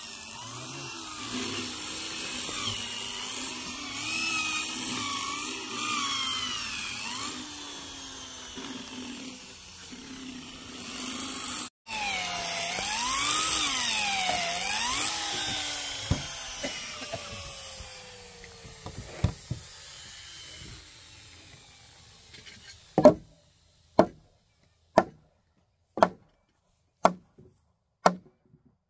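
Electric drill boring into wood, its motor whine rising and falling in pitch as it loads and frees up, with a brief break partway through. Near the end the drilling gives way to sharp knocks at about one a second.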